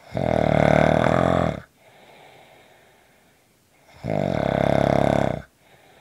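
A person snoring: two long, pitched snores about four seconds apart, each lasting about a second and a half, with soft breath noise between them.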